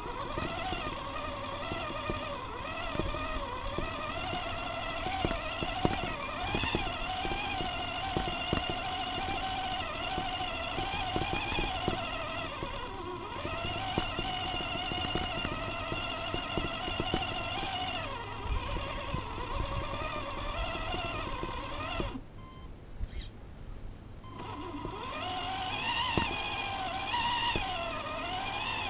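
Whine of a Tamiya Toyota Tundra RC truck's electric motor and gearbox, heard from a camera on the truck, rising and falling in pitch with the throttle over a rumble from the chassis bumping across grass and paving. The whine stops for about two seconds roughly three-quarters of the way through, then picks up again.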